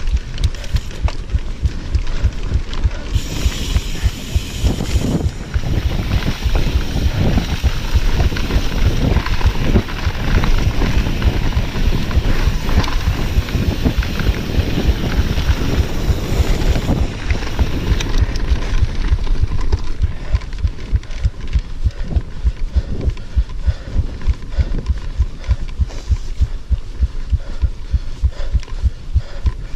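Mountain bike ridden over dirt singletrack: tyres rumbling on the trail and the bike rattling and knocking over bumps, with wind buffeting the chest-mounted action camera's microphone. A high hiss rides over the rumble for much of the first half.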